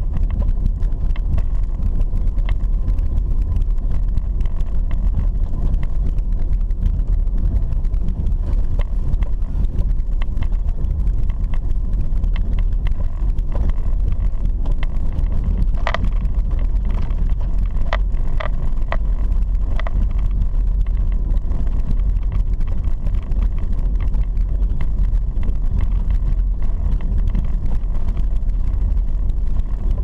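Car driving along a dirt road, heard from inside the cabin: a steady low rumble of engine and tyres on the unpaved surface. A few short knocks or rattles come about halfway through.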